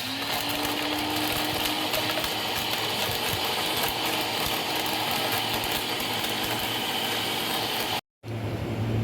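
Electric blender running steadily, grinding soaked whole spices (cinnamon, star anise, black and white cardamom, cumin seed) with water. The sound cuts off abruptly near the end.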